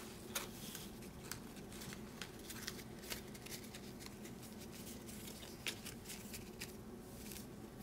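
Trading cards in plastic holders and sleeves being handled and shuffled through in the hands, making scattered faint clicks and light rustling.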